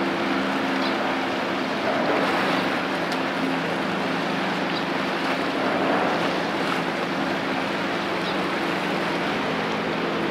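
A passing container ship: steady rush of water at its bow wave with a low hum that fades a few seconds in and returns near the end, and some wind on the microphone.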